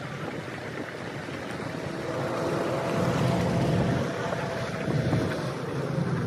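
A vehicle driving on a rough unpaved road: steady engine and road noise, with wind buffeting the microphone.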